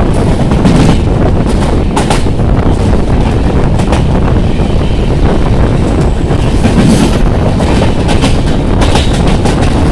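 Indian Railways LHB passenger coach running at high speed, heard from its doorway: a loud, steady rush of wheels on rail and wind, with sharp clacks now and then as the wheels cross rail joints and points.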